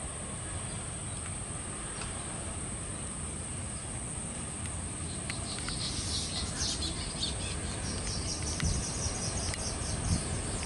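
Insects chirping in quick repeated pulses from about halfway in, over a steady high-pitched drone and a low steady rumble.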